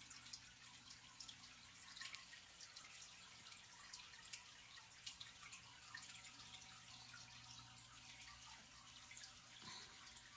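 Faint aquarium water: small irregular drips and bubbles popping, over a faint steady low hum.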